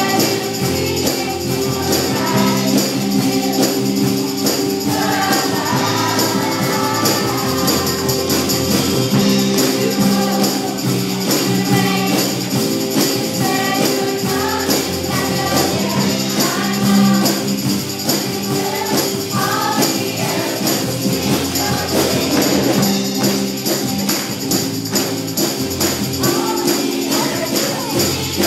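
Children's choir singing a worship song together over instrumental accompaniment with a steady, jingling beat.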